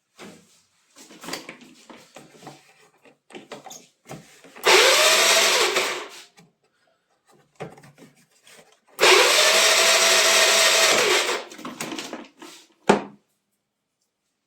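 A power tool runs in two bursts, one about a second and a half and one about two and a half seconds long, its pitch rising as it spins up and falling as it stops. Knocks and clatter of parts being handled come between the bursts, and there is a sharp click near the end.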